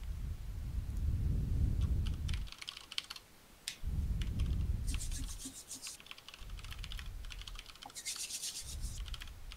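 Rubbing and handling noise in several low stretches, with short runs of light clicking over them.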